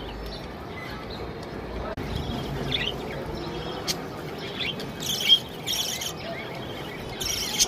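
Budgerigars chirping: scattered short calls, then louder bursts of chatter in the last few seconds.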